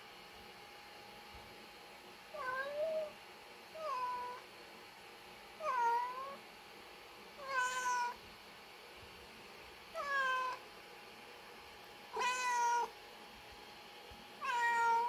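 Domestic tabby-and-white cat giving seven big sad meows, one about every two seconds, each with a bending pitch. She is meowing while unwell with an infected tail abscess.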